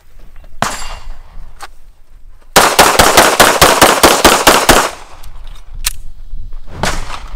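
Gunfire: a single shot about half a second in and another a second later, then a rapid string of about a dozen shots at roughly five a second with echo ringing between them, then two more single shots near the end.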